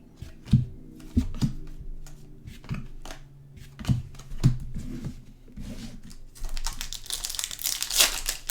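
Trading cards handled and tapped down on a table a few times. Then, from about two-thirds of the way in, a card pack wrapper crinkling and tearing open.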